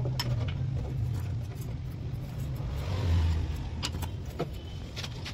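A few sharp metal clinks from a socket wrench and extension on a scooter's clutch centre nut, over a steady low rumble that swells briefly about three seconds in.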